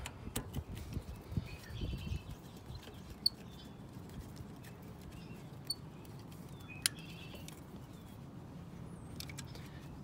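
Quiet hand-tool work on a motorcycle as an Allen key snugs up a bolt: soft rustling and handling in the first couple of seconds, then a few isolated light clicks. Birds chirp faintly in the background.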